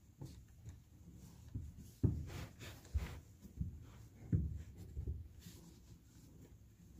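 Faint handling noise: a few soft, low thumps and rustles as a shooter shifts and settles behind a bolt-action rifle on a truck bed. No shot is fired.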